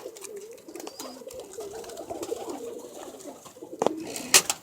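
Domestic pigeons cooing, with overlapping low, wavering coos. Near the end come a few sharp clicks or clatters.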